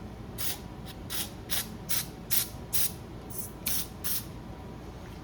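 Aerosol can of brake cleaner sprayed in about ten short bursts, a little under half a second apart, through the passages of a small-engine carburetor body to flush them clean.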